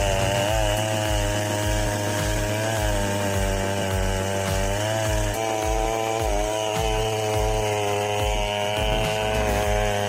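Gas chainsaw running steadily under load while cutting wood, its engine pitch dipping and rising slightly as it bites.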